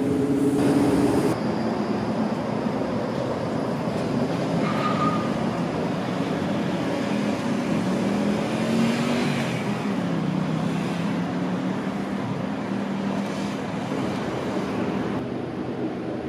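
Electric light-rail tram running: the rolling noise and low motor hum of a Metrovalencia tram, with a low whine that rises and then falls about eight to ten seconds in.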